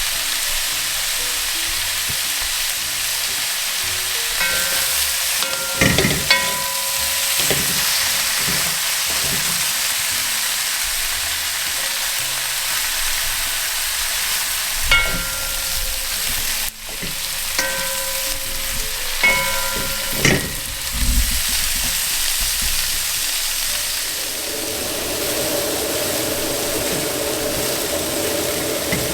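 Chopped onions and peppers sizzling steadily in hot oil in a frying pan, stirred with a utensil that knocks and scrapes against the pan with ringing clinks in a few clusters.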